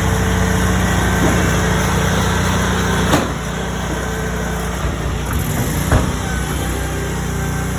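Small gasoline engines of lawn-care equipment running steadily, dropping a little in level about three seconds in, with two short sharp knocks, one about three seconds in and one about six seconds in.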